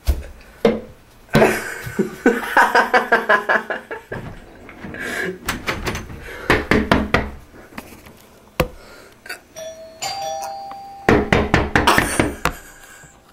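Repeated rapid knocking and banging on a door, with a doorbell chiming briefly about ten seconds in.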